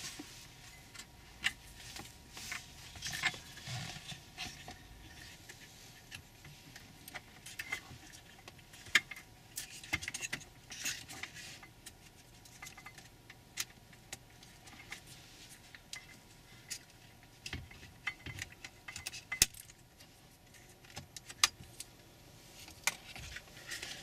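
Scattered, irregular plastic clicks and rattles from hands handling a removed plastic console tray with its wireless charger module and working wiring connectors and clips loose from it.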